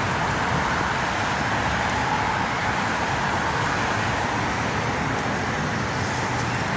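Steady roar of busy city road traffic, cars and buses passing continuously on a multi-lane street, heard from the roadside.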